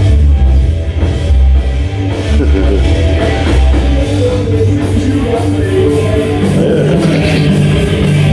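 Loud rock music with a heavy bass line, played through a restored Audiomobile AR-3 car-audio rack amplifier system into room speakers.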